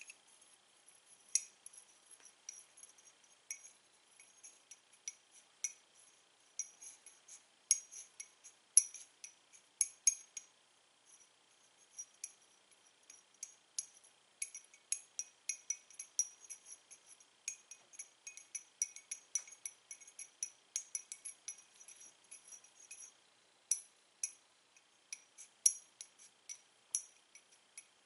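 Two sticks of white chalk clicking and clinking against each other as they are rolled and shuffled in the hand: many quick, irregular taps with a light, glassy ring.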